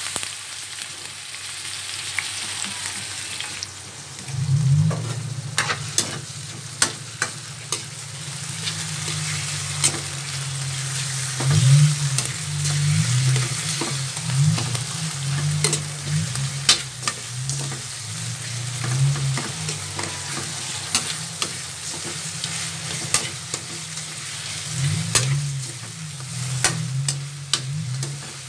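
Chicken sizzling as it fries in oil with garlic and onion in a wok, with frequent sharp clicks and scrapes of a metal spoon stirring against the pan. A low wavering hum joins about four and a half seconds in.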